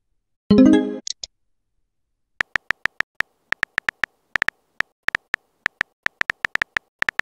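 Texting-app keyboard clicks, a quick irregular run of key taps starting about two and a half seconds in as a reply is typed. Before that, about half a second in, a short electronic chime of several tones sounds as the message comes up on the other phone.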